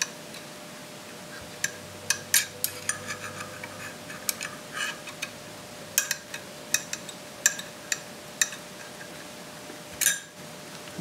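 Small metal clicks and taps at an irregular pace as an AR-15 gas tube is handled and pushed into the front sight base and upper receiver. The tube is not sliding in easily, which the owner puts down to carbon buildup on its end.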